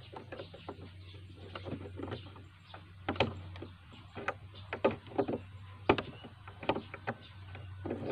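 Small plastic parts clicking and tapping together by hand as springs and pieces are fitted into a blue plastic trigger housing on a wooden tabletop. Irregular sharp clicks, the loudest about six seconds in.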